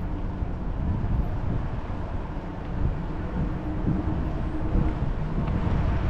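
Vehicle driving slowly: a steady low engine and road rumble, with wind buffeting the microphone.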